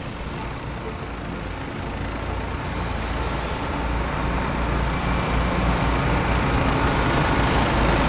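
Road traffic: a motor vehicle's low, steady rumble, growing gradually louder as it approaches.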